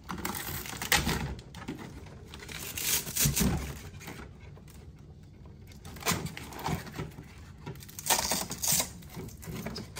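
Velcro straps being peeled off an ECMO oxygenator, giving several short ripping sounds, with the clatter of plastic tubing and fittings being handled in between.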